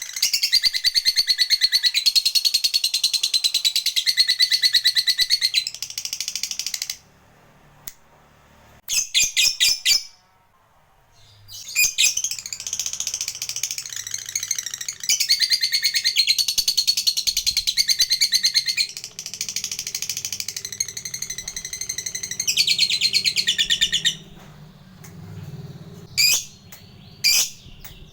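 Lovebird singing its long 'ngekek' chatter, a rapid, high-pitched trill. It comes in two long runs of several seconds each, with short bursts between them and near the end.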